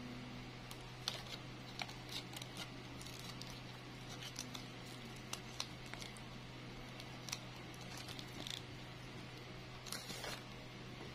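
Small clicks and soft rustles of hands handling the plastic-bag flower stem, leaves and thin wire, over a steady low hum. A longer crinkling rustle comes near the end.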